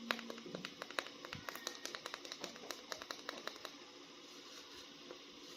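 Rapid, irregular small plastic clicks and taps from hands handling a mini plastic action figure, thinning out to near stillness about two-thirds of the way through.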